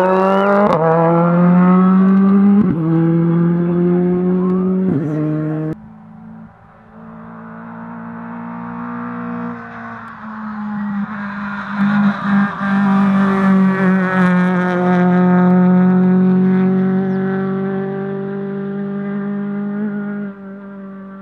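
Rally car engines at full throttle. First a Ford Fiesta rally car accelerates hard with three quick upshifts, its pitch climbing and dropping back each time. After a sudden cut about six seconds in, another rally car is heard further off, its engine swelling and holding at high revs.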